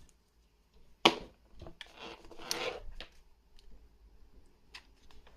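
Handling noise: a sharp click about a second in, then rustling and a few light clicks as a USB charging cable and a camera battery pack are handled.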